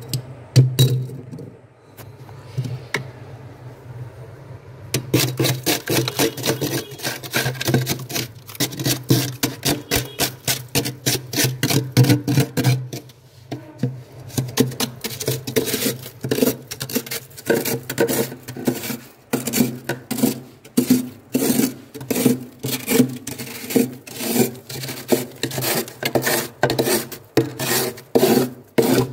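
Metal spoon scraping the frost built up on a freezer's inner walls: crunchy, rasping strokes at about two a second. The steady scraping starts about five seconds in, after a few lighter scratches over a low hum.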